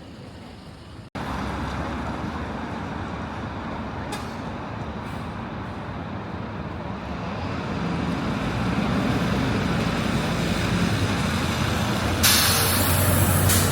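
Heavy diesel vehicle running close by, its low engine note growing louder, with a short blast of air-brake hiss near the end.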